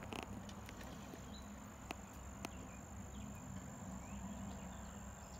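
A steady high-pitched insect trill, with a low background hum, two sharp clicks about two seconds in, and a few faint short chirps.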